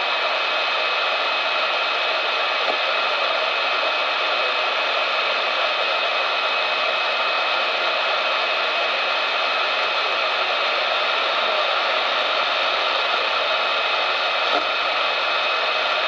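Weather alert radio's speaker giving steady static hiss, with a thin steady high-pitched whine running through it and a faint tick near the end.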